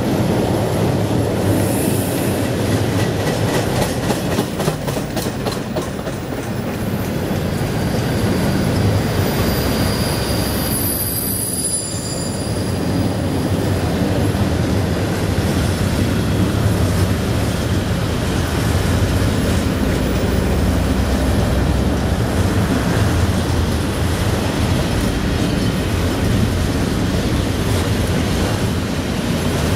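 Freight train of tank wagons rolling past: a steady rumble of steel wheels on the rails, with wheels clicking over rail joints in the first seconds and a thin high wheel squeal about ten seconds in.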